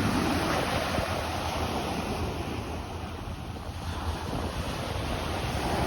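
Sea waves washing onto a sandy beach, with wind rumbling on the microphone. The surf eases a little around the middle and builds again near the end.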